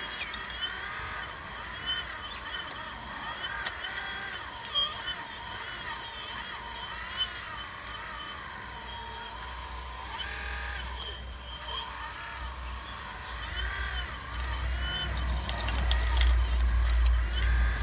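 Hydraulic pump of a 1:12 scale RC excavator whining, its pitch rising and falling over and over as the hydraulics are worked. A low rumble builds in about two-thirds of the way through and grows louder toward the end.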